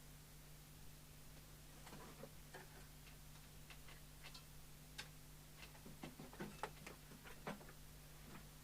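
Faint, irregular clicks and taps of small parts and tools being handled at an electronics repair bench, more of them near the end, over a steady low electrical hum.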